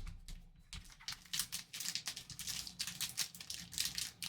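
Foil trading-card packs crinkling and rustling as they are pulled out of a cardboard box, with light rapid taps and scrapes.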